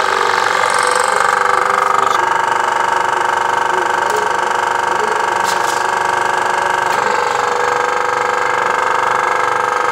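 Keiser KT17999 crack-injection pump running steadily while forcing injection chemical through its hose into a packer in a concrete floor crack. Its tone shifts slightly about two seconds in and again around seven seconds.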